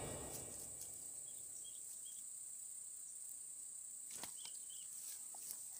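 Faint, steady high-pitched drone of insects, with a few short chirps and a couple of faint clicks about four seconds in. Background music fades out at the very start.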